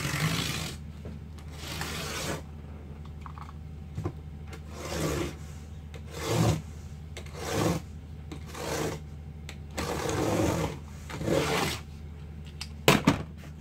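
A knife drawn along a wooden straightedge, cutting through a sheet of cardboard in about eight separate scraping strokes, over a steady low hum. A few sharp knocks near the end.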